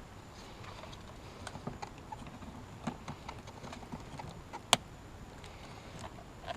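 Scattered light clicks and taps from hands handling hard parts, with one sharp, much louder click a little past halfway.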